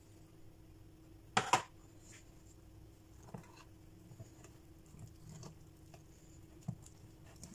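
Wire whisk stirring ground toasted hazelnuts into thick chocolate brownie batter, with soft scraping and light ticks against the bowl. A short, sharp clatter comes about one and a half seconds in.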